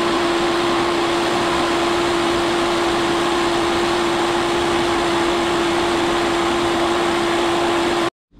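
Vertical milling machine running steadily as its cutter takes a facing pass across a cast-iron casting: an even machine noise with a strong steady hum-like tone. It cuts off suddenly near the end.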